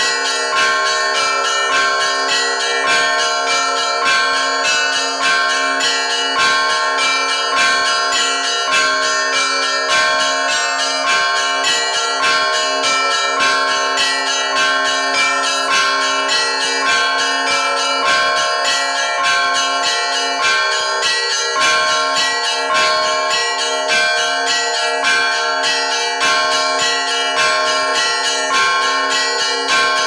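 Russian Orthodox church bells rung by hand from a belfry, the ringer working ropes tied to the bell clappers. A continuous peal of several bells struck in quick rhythmic succession over the held ringing of a deeper bell.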